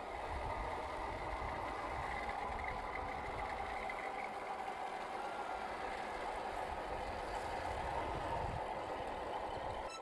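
1/10-scale HB-R1002 Bronco RC crawler driving steadily: a continuous whir from its 550-size electric motor and geared four-wheel drivetrain as it crawls over wet dirt and through muddy puddles.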